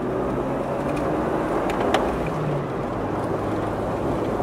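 Steady vehicle driving noise: a low engine hum under road rumble, with a couple of faint clicks about two seconds in.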